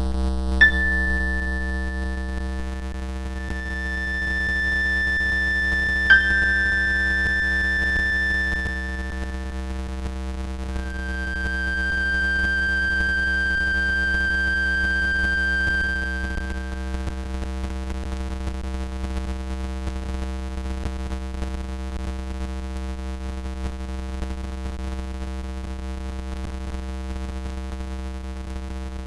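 Electronic synthesizer drone of steady, layered pure tones over a low hum. Higher held tones enter with a click about half a second in and again at about six seconds, and another high tone swells in around eleven seconds and fades out by about seventeen.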